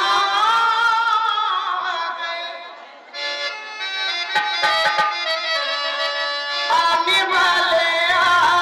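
A singer's voice over a stage PA with harmonium and tabla accompaniment, in folk-theatre style. The singing dips about three seconds in, leaving a short passage of held harmonium notes with a few tabla strokes, and comes back about seven seconds in.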